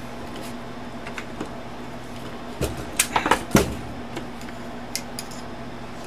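An old Underwood typewriter being handled and turned over onto its back: a few scattered clicks, then a cluster of knocks and clunks from its metal frame between two and a half and four seconds in, over a steady background hum.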